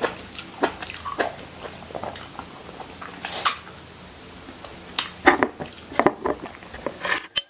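Someone eating soy-braised salmon head with their fingers: wet chewing and smacking sounds in a string of short bursts, loudest about three seconds in and again in a cluster near the end.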